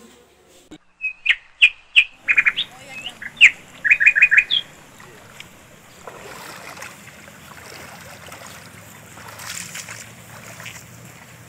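A bird chirping in a quick run of short, high notes for a few seconds, then stopping, leaving a soft, even outdoor noise.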